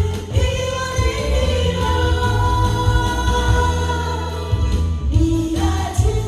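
A singer performing a Korean trot song over an accompaniment with a steady, heavy bass beat, holding one long note for several seconds before a shorter phrase near the end.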